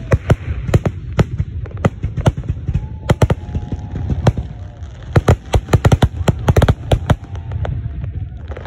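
Fireworks going off in rapid volleys of sharp bangs and cracks over a low rumble. The bangs thin out near the end.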